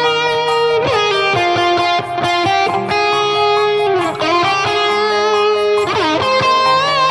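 Background music: an electric guitar plays sustained lead notes with bends over a steady rhythm, with some distortion.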